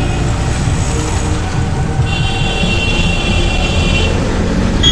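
Street traffic heard from a moving cycle rickshaw under a heavy low rumble. A high-pitched steady tone sounds for about two seconds midway, and a brief high tone comes near the end.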